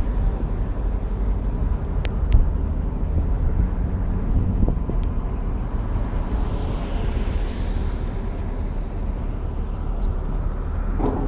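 Steady low rumble of wind noise, with a few faint clicks about two seconds in and a swell of hiss around the middle.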